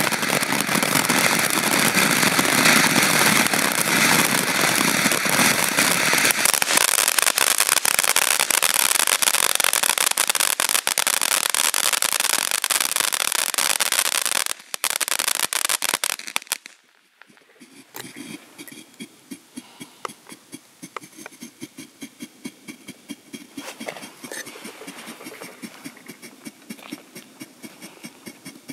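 Firework fountain spraying sparks with a loud, dense crackling hiss. About sixteen seconds in it dies down, leaving faint, rapid, irregular pops.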